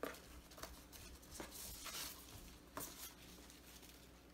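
Faint rustling and a few brief soft swishes and scrapes as a ribbon is pulled off a cardboard gift box and the box is handled.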